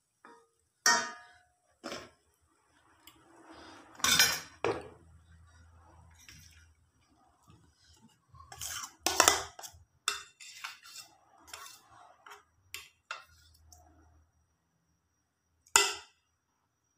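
Metal spoons clinking and scraping against a metal wok and a steel mixing bowl while frying prawn fritters: a string of irregular sharp clinks, the loudest about four seconds in, around nine seconds in and near the end.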